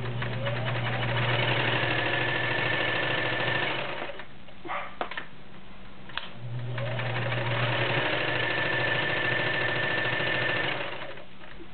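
Kenmore Model 1941 sewing machine, an all-metal machine with a 1-amp motor, running quietly in two runs of about four seconds each, with a steady motor hum. A few short clicks fall in the pause between the runs.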